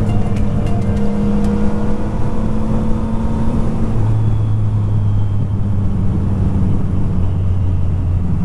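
Yamaha MT-09 three-cylinder motorcycle engine running steadily while riding, its note dropping lower about halfway through.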